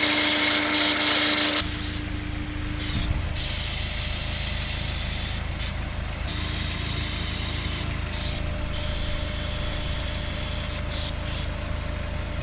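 Honda S2000's F22C four-cylinder engine running, a low steady rumble under a strong high-pitched hiss that drops out briefly several times. The sound changes abruptly about a second and a half in.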